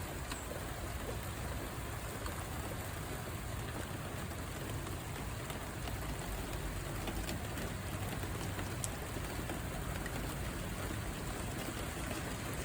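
Steady rain falling: an even hiss with a low rumble beneath and a few sharp drop ticks.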